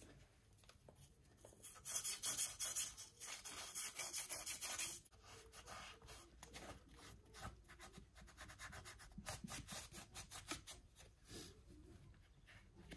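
Cloth rubbing against the metal of a Citroën BX engine block, wiping it clean. The rubbing is loud and brisk for about three seconds, starting about two seconds in, then goes on as lighter, uneven strokes.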